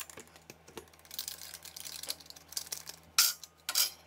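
Gloved hands handling metal saw blades and an angle grinder on an aluminum plate: cloth rubbing and shuffling with a few light clicks, then two sharper metallic knocks near the end.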